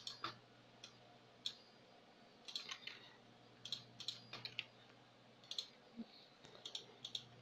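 Faint computer keyboard typing and mouse clicks: short, separate clicks in small clusters with quiet gaps between.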